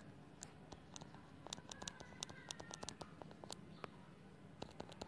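Faint clicks and light taps of a stylus writing on a tablet screen, coming thickest in the middle.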